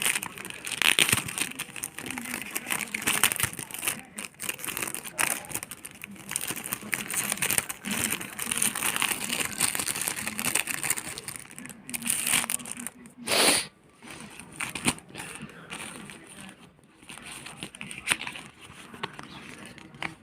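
Packaging crinkling and rustling as it is handled and opened, in irregular crackles. About two-thirds of the way through comes one brief, louder rasp.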